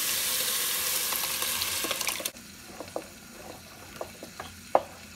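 Hot onion-tomato masala sizzling in an aluminium pot. The sizzle cuts off suddenly about two seconds in as wet, ground boiled spinach is poured over it. Then come a few light clicks and one sharp knock of utensil or pot near the end.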